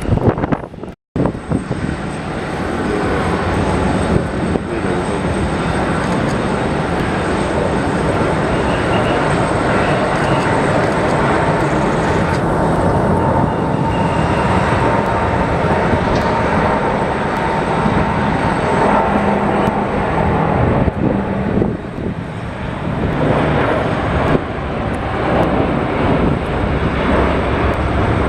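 Jet airliner engines running loudly and steadily as the plane passes, with a faint steady whine through the middle. Heavy wind buffets the microphone, and the sound cuts out briefly about a second in.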